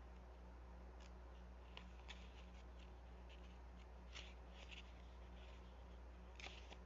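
Near silence over a low steady hum, broken by faint, scattered rustles and light ticks of paper being handled, as in leafing through a tarot guidebook.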